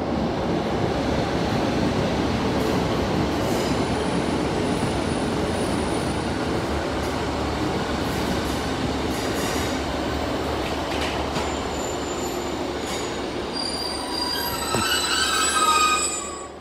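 A Northern Class 150 Sprinter diesel multiple unit running slowly alongside the platform, with a steady rumble of engine and wheels. High-pitched squealing grows from about 14 seconds in and is loudest just before the sound cuts off.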